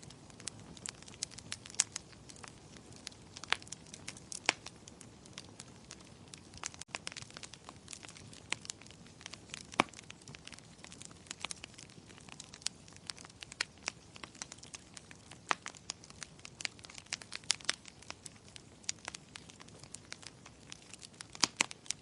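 Wood fire in a fireplace crackling, with many irregular sharp pops and snaps over a soft steady hiss.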